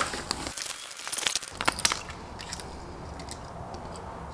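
Packing material crinkling and rustling as hands unpack a cardboard box, with a few sharp crackles in the first two seconds, then quieter handling.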